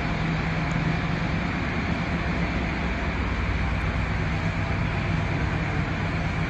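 Steady industrial machinery hum: a constant low drone over an even noise, with no change in level.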